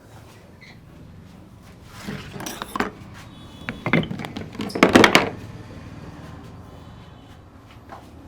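Bursts of quick slaps and knocks from massage strikes on a person's head and back: a short run about two seconds in, a few more near four seconds, and the loudest, fastest run about five seconds in.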